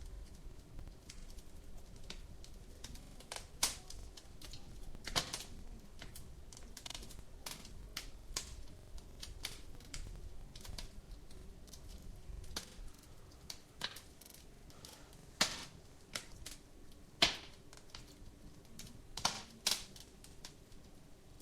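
Fire in a fireplace crackling, with irregular sharp pops over a faint low rumble.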